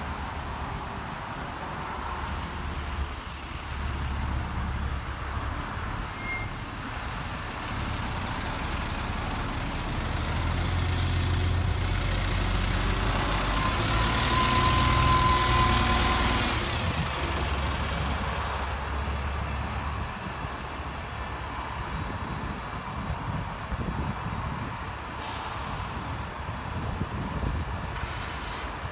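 Double-decker bus engine running as the bus pulls past close by, loudest about halfway through. There are two short loud bursts about three and six seconds in, typical of air brakes.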